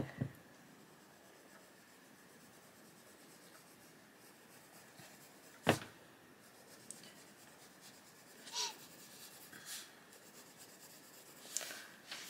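Faint scratching of a Castle Arts Gold coloured pencil shading on a colouring-book page, with a single sharp click about halfway through.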